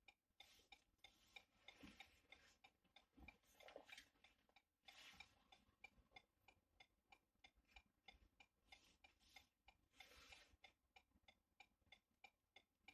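Faint, even ticking at about three ticks a second from the Renault Megane IV's hazard-warning flasher, switched on for the key-programming procedure.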